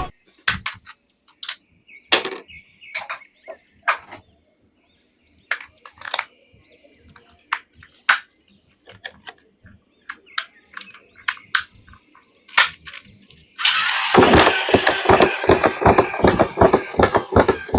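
Hands handling plastic action figures and their packaging: scattered clicks, taps and light scrapes. About 14 seconds in, a much louder, dense crackling noise with rapid clicks takes over.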